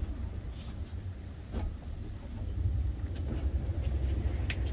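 Small fishing boat's engine running underway, a steady low rumble with the wash of water under it. A short high chirp sounds near the end.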